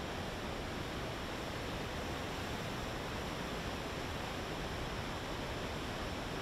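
Floodwater rushing through river rapids: a steady, even roar with no breaks.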